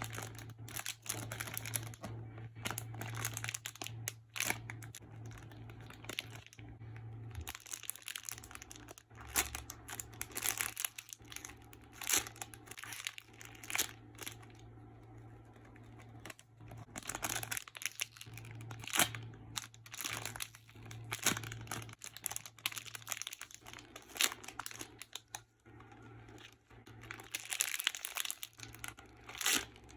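Irregular crinkling and rustling of plastic handled by hand, likely the wrappers or bags of squishy toys, over a steady low hum.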